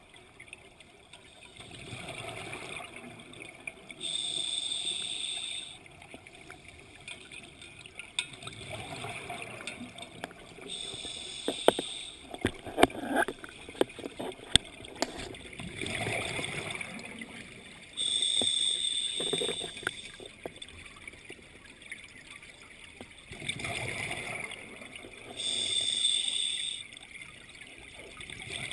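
Scuba diver breathing underwater through a regulator: a hissing, slightly whistling inhale alternates with a bubbling exhale, about one breath every seven seconds, four breaths in all. A run of sharp clicks and knocks comes near the middle.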